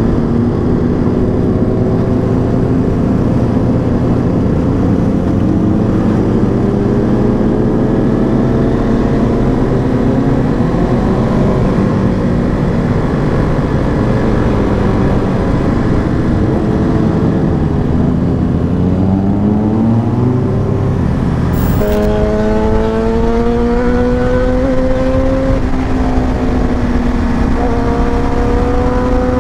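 KTM RC200 single-cylinder engine running at road speed, with wind noise; its pitch rises and falls with the throttle. About 22 seconds in the sound changes abruptly, and the engine note then climbs steadily, dips briefly and climbs again as the bike accelerates.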